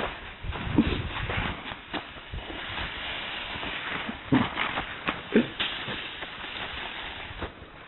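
People running through snow, with scattered footfalls over a steady rushing hiss of wind on the microphone, and a few short shouts about a second in and again around four and five seconds.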